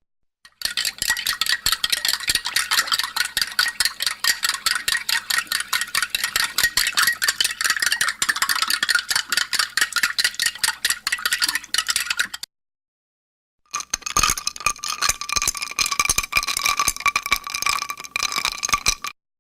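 A spoon stirring a drink in a glass, clinking rapidly and continuously against the glass for about twelve seconds. After a short pause a second stretch of stirring follows, with the glass ringing clearly under the clinks.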